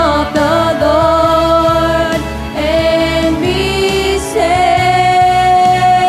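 Live church worship band music: voices sing long held notes over a bass line that pulses in a steady beat.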